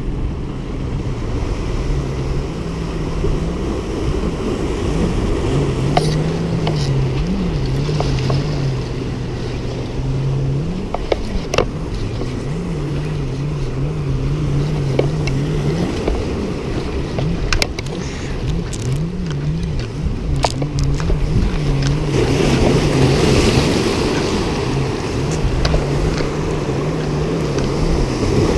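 A boat's engine droning offshore with a wavering, stepping pitch, over surf washing against jetty rocks and wind on the microphone. There are a few sharp clicks of handling, and a louder wash of surf comes about two-thirds of the way through.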